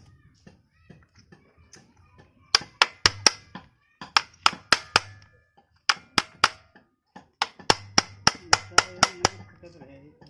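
Quick, ringing hammer taps on metal in four bursts of three to nine strikes each, about four strikes a second, typical of tapping a bearing or part into place on an electric planer.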